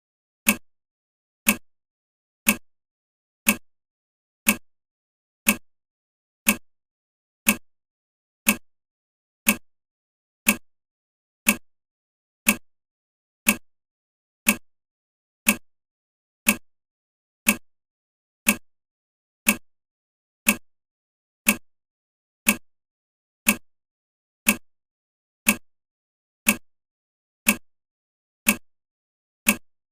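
Countdown timer's clock-tick sound effect: one short, sharp tick every second, evenly spaced, as the timer counts down.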